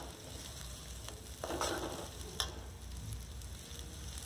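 Chopped vegetables sizzling in hot oil in an aluminium kadai while a metal spatula stirs them. There is a scrape of the spatula across the pan about a second and a half in and a sharp tap a little after.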